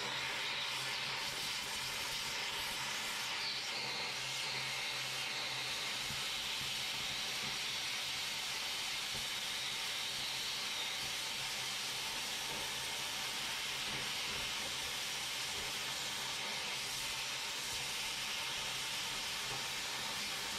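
Oxy-fuel cutting torch hissing steadily as it cuts through a rotted steel suspension bracket.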